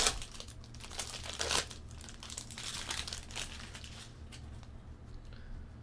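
Foil wrapper of a baseball card pack being torn open and crinkled, with sharp crackles at the start and again about a second and a half in. The crinkling dies away after about four seconds as the cards come out.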